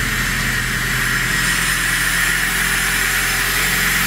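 Freshly overhauled 1.6-litre four-cylinder carburettor engine of a VAZ 2107 idling steadily, just after starting from cold, as it begins to warm up.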